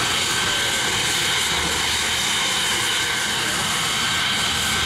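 Saab 37 Viggen's Volvo RM8 afterburning turbofan running at ground idle: a steady high whine over a rushing hiss.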